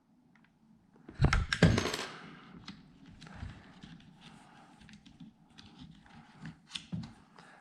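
Handling noise from a toy rifle and its weapon-light cable being worked into place. A few loud knocks and scrapes come a little over a second in, then faint scattered clicks and rustles.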